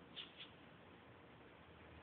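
Near silence: room tone with two faint short clicks close together near the start.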